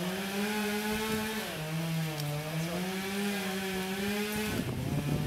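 Chainsaw running at high revs, its pitch dipping and recovering about a second and a half in, and again near the end with a rougher patch.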